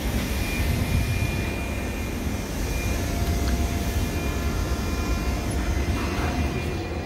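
A steady low rumble with faint, steady high whining tones over it: railway station background noise.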